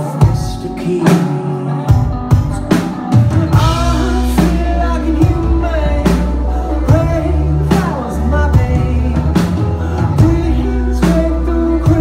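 Live band playing a song: a steady drum-kit beat, electric guitar, and a male lead vocal, with a deep bass line that comes in about two seconds in.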